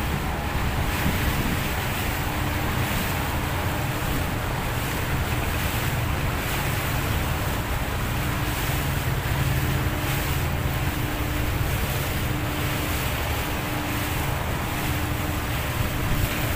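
Boat engine running steadily with a low hum, water washing past the hull, and wind buffeting the microphone.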